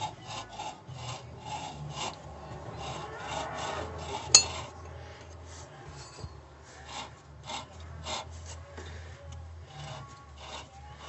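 Repeated rough scraping and rubbing strokes of a hand working on the metal hub and brake parts of a Lada Granta's rear drum brake, with one sharp metallic click about four seconds in.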